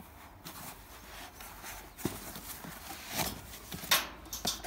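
White packing sheet rustling and the cardboard box being handled as a small welding machine is unpacked: irregular scuffs, crinkles and light knocks, the loudest about four seconds in.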